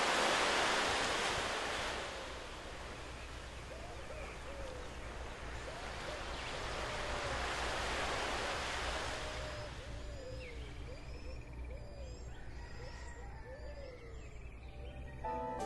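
Ocean surf washing onto a beach in two long swells, one peaking at the start and one about eight seconds in, with birds calling and chirping over it. Music with held string notes comes in just before the end.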